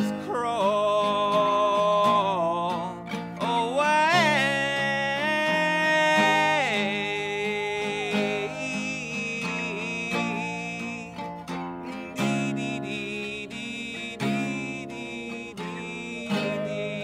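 A man singing while strumming an acoustic guitar, holding long notes that waver in pitch over steady strummed chords.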